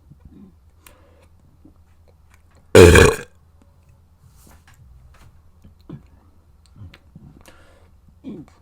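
A person burps once, loudly, for about half a second, about three seconds in.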